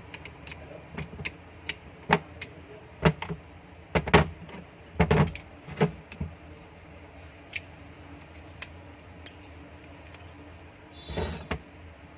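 Irregular metallic clicks and clinks of screws and a screwdriver against the exhaust fan motor's cover while its cover screws are fitted and tightened, loudest in a cluster a few seconds in, with a short scraping rustle near the end.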